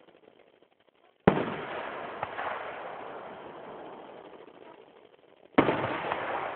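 Two aerial fireworks shells bursting about four seconds apart, each a sharp bang followed by a slowly fading tail of noise with a few small pops.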